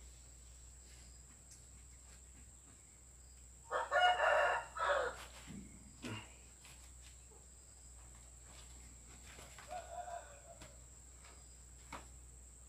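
A rooster crows once, loudly, about four seconds in, followed by a fainter call near ten seconds.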